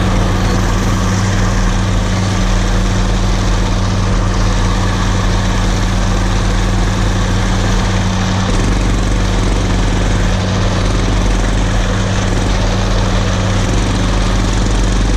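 Engines running steadily without a break: an old tractor pulling a sickle-bar hay mower, with a minibike following close behind.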